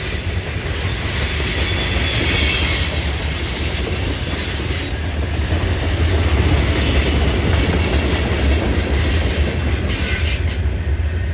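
Cars of a freight train hauling stone rolling past with a steady low rumble and intermittent high wheel squeal. The squealing dies away near the end while the rumble carries on.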